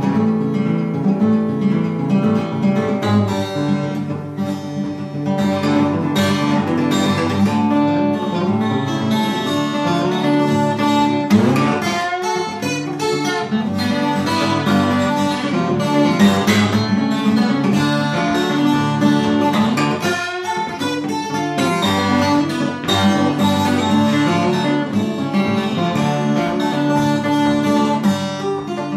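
Twelve-string acoustic guitar played solo, a continuous run of picked notes over a steady bass line with a bright, jangling twang.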